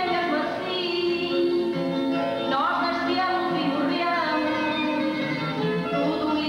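A woman singing with instrumental accompaniment, holding long notes and sliding up in pitch about two and a half seconds in and again near four seconds.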